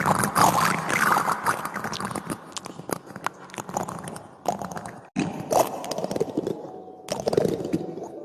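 Metal teaspoon scraping and raking across cactus spines, a dense crackly scratching full of sharp little clicks, cut off for an instant about five seconds in.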